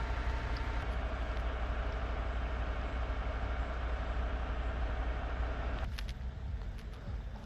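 Steady rumble of motor-vehicle noise, dropping away sharply about six seconds in, followed by a few faint clicks.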